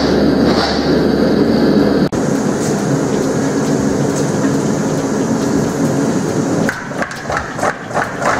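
Steady roar of a gas forge's burner heating steel. About two-thirds of the way in, a mechanical power hammer starts pounding red-hot steel bar stock in rapid, even blows, about four a second.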